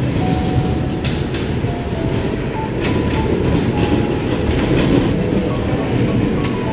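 Coin-operated kiddie ride train running on its small steel track: a steady rumble of wheels, with a few clicks. A faint tune plays over it.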